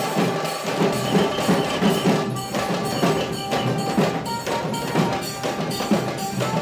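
Percussion-led music: drums struck in a quick, steady rhythm, with a held tone running under them.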